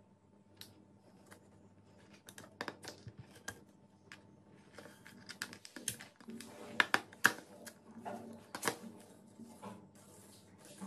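Irregular small clicks, taps and scratchy rubbing as hands work rubber tubing and thread against a PVC pipe, binding the tubing on. The clicks come thicker and louder a little past the middle, with a few sharper knocks.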